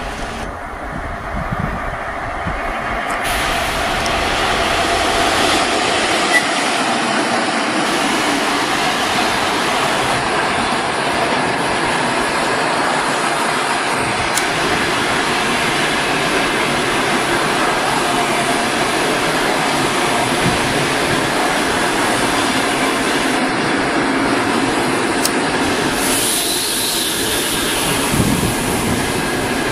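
Passenger train hauled by a ChS4 electric locomotive passing close by, its coaches' wheels running on the rails. The noise builds over the first few seconds as the train draws near, then holds steady and loud.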